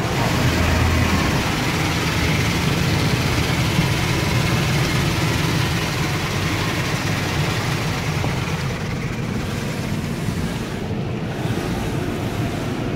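Soft-cloth car wash brushes and cloth strips scrubbing over the windshield and body, with water spraying, heard from inside the vehicle's cabin: a steady, dense wash of noise over a low rumble.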